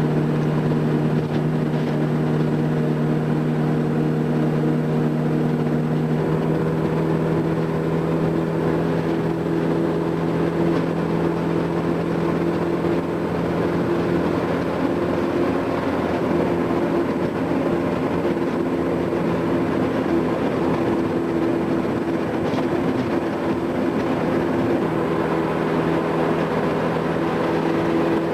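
Old UAZ-452 van's four-cylinder petrol engine running steadily under way, its pitch stepping up slightly about six seconds in and back down near the end.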